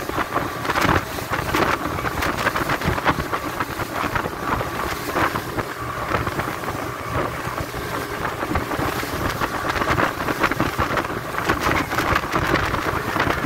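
Strong wind buffeting the phone's microphone aboard a speedboat running fast over open water, with the rush of the hull and spray and the boat's motor beneath it.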